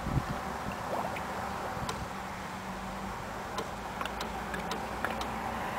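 Water being poured into the truck's engine: a steady trickle with a few light ticks.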